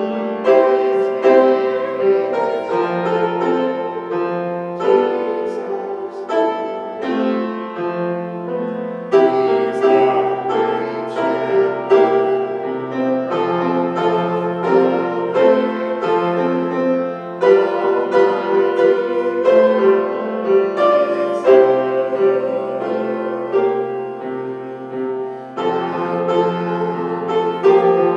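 Grand piano playing a slow instrumental piece, chords changing every second or two over held bass notes.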